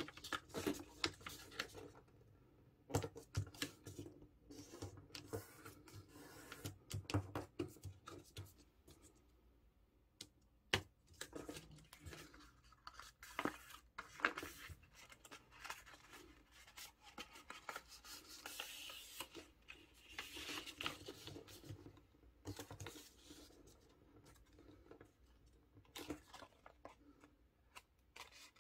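A half sheet of A4 printer paper being folded and creased by hand: irregular rustling, crackles and short scrapes as the paper is handled and the folds are pressed down.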